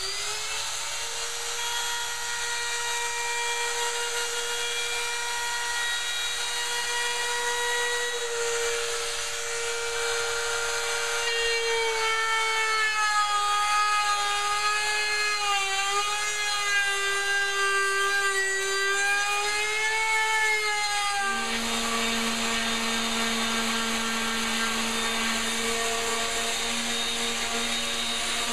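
Handheld trim router running, its whine sagging and wavering in pitch as the bit cuts along the edge of a wooden frame. About two-thirds of the way through it changes abruptly to an orbital sander running steadily with a lower hum.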